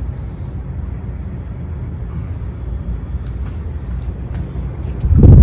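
52-inch Gulf Coast Futura ceiling fan running on medium speed: a steady low rush of moving air on the phone's microphone. A faint high thin tone comes in about two seconds in and fades before the end, and a sudden loud low buffet comes near the end.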